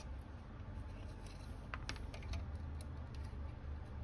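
A few faint small clicks and taps as a transistor's metal leads are handled and fitted into holes in a motherboard, over a low steady hum.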